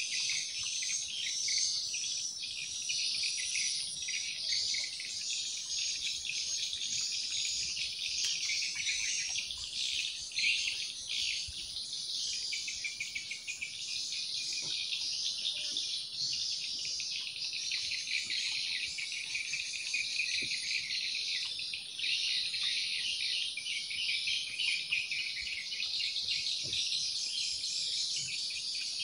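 Insects chirring in a dense, unbroken, high-pitched chorus that swells and fades slightly.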